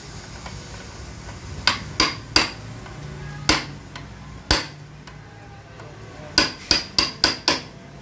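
Metal tool tapping on a bolt retaining clip on a Honda automatic transmission case to open it. The sharp metallic taps come as three quick ones about a second and a half in, two single ones, then a run of five near the end.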